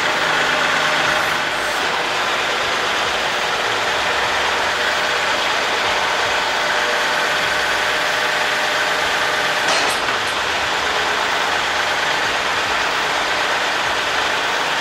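Kubota L3301 tractor's three-cylinder diesel engine running steadily while the attached BH77 backhoe is worked, with one brief knock a little under ten seconds in.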